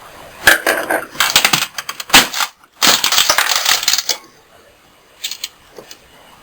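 Clattering and rattling of small hard objects being handled: a dense run of clicks and knocks for about three and a half seconds, then a few faint clicks near the end.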